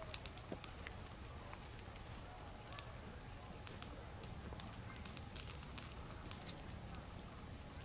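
Wood campfire crackling with irregular sharp pops, over a steady high-pitched chirring of crickets.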